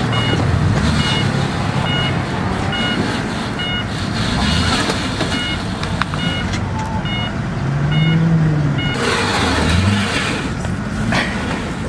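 A lowered sedan's engine idles with a steady low rumble while a high electronic beep repeats about twice a second, stopping about nine seconds in. Voices are mixed underneath.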